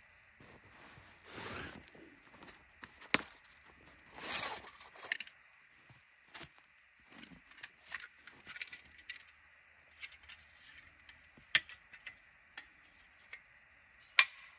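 Sharp metallic clicks and clinks, with a few swishing rustles, as a black-framed folding bow saw is unfolded and its blade fitted. The loudest clicks come about three seconds in, near the middle and just before the end.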